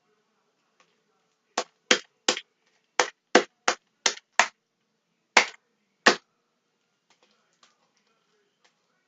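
Homemade slime being kneaded and pulled by hand, giving a run of about ten sharp, irregular pops and snaps over some four seconds.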